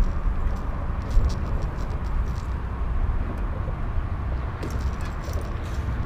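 Wind rumbling on the microphone, with scattered light clicks and rattles as a caught bass and the crankbait hooked in it are handled.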